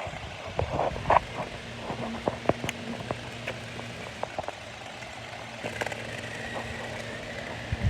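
Toy RC car running: a faint steady motor hum with scattered clicks and crackles.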